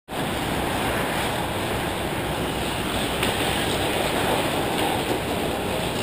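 Steady noise of ice hockey play in a large indoor rink: skates scraping the ice under a constant hiss and rumble, with a couple of faint clicks a little past the middle.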